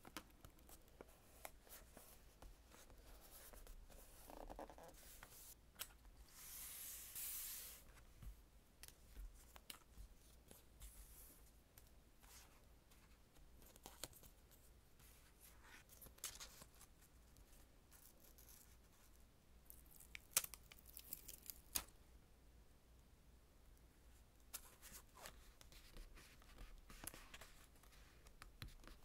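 Faint journaling sounds: green washi tape being torn and pressed onto a paper page, then clear plant stickers rustling as they are peeled from their sheet and set down with tweezers. One longer tearing rustle of over a second stands out among scattered small clicks and taps.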